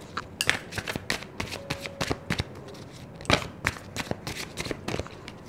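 A deck of tarot cards being shuffled by hand: a run of quick, irregular card flicks and taps, with one louder snap a little past halfway.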